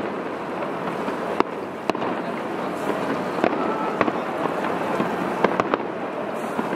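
Aerial firework shells bursting: a run of sharp bangs, about one or two a second, over a continuous noisy background.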